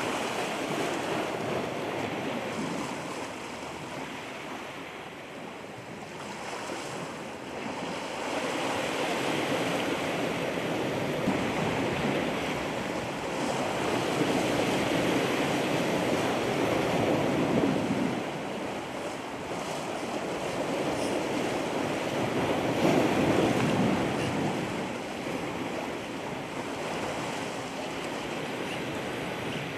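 Ocean surf breaking and washing ashore, a steady rush of water that swells louder and eases off every several seconds.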